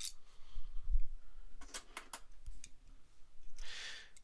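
Small die-cast toy aircraft being handled and set down on a plastic toy aircraft carrier deck: a few light clicks and taps over soft low handling bumps, then a brief soft rustle near the end.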